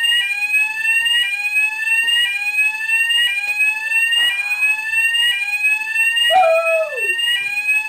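Building fire alarm sounder wailing: a rising sweep tone that repeats about once a second.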